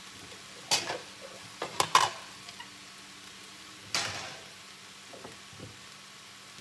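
A few sharp knocks and clacks of kitchen items being set down and moved on a granite countertop, about a second in, twice near two seconds and once at four seconds. Under them a faint steady sizzle from a pan of wild-rice stuffing just taken off the heat.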